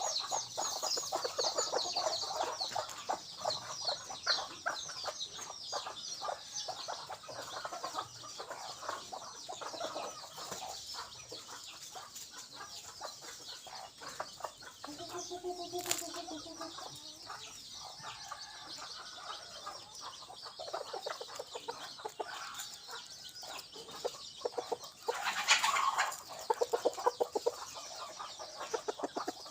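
Rooster clucking in long rapid runs, as a decoy jungle-fowl cock does, over high, dense chirping. A short pitched call comes about halfway through, and a brief loud rustling burst comes near the end.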